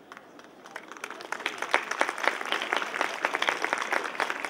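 Audience applause, a mass of hand claps that starts faintly and swells to full, steady clapping within about a second and a half.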